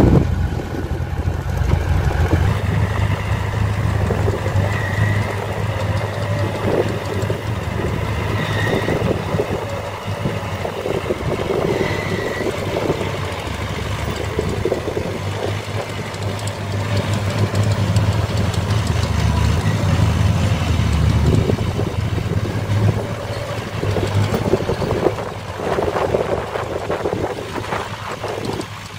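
Heavy diesel engines of a Caterpillar excavator and a dump truck running at a worksite, a steady low rumble.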